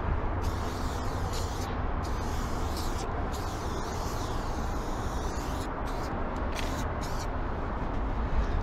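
Aerosol spray paint can hissing in bursts as a tag is sprayed: a few long sprays of a second or more, then a run of short spurts, over a steady low rumble.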